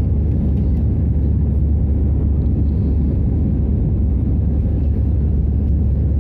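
Steady low rumble of an Airbus A320's CFM56 turbofan engines and the airflow over the fuselage, heard from inside the cabin during the climb after takeoff.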